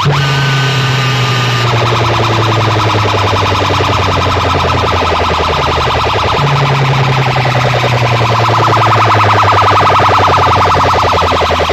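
Siren-like electronic sound effect blasted through a large DJ speaker system: a fast pulsing buzz over a held bass tone, with a slow falling glide and a wailing band that swells again near the end.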